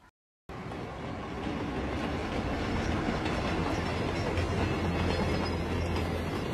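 A steady, dense rumble with a low hum underneath, like a large vehicle running. It cuts in suddenly just under half a second in, after a brief silence, and grows a little louder over the next second.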